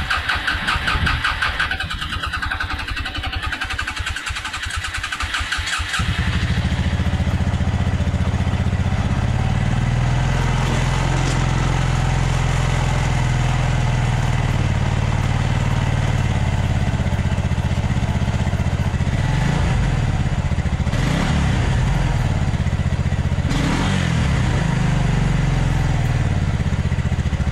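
The electric starter of a 1996 Suzuki King Quad 300 ATV cranks its single-cylinder four-stroke engine with an even, rapid chugging for about six seconds. The engine then catches and keeps running, its revs rising and falling a few times near the end.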